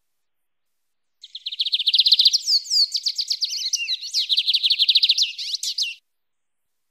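Lined seedeater (bigodinho) singing its wild-type 'mateiro' song: a rapid string of high repeated notes with a few sliding notes mixed in. It starts about a second in and cuts off abruptly near the end.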